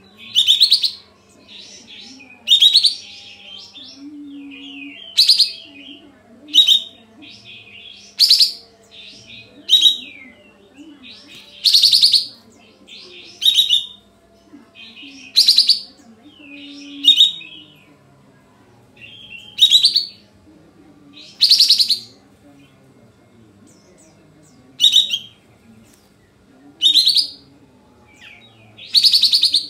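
Kapas tembak bulbul singing its 'nembak' (shooting) song: short, loud, sharp calls repeated every one to two seconds, with softer chattering between them.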